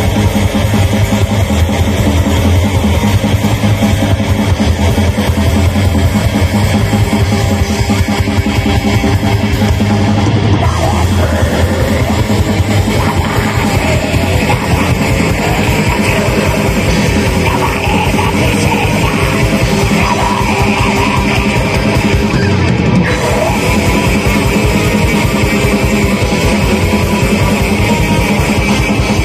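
Live heavy metal band playing: distorted electric guitars over fast, dense drum-kit beats, loud and unbroken, with the music shifting about ten seconds in and again a little past twenty seconds.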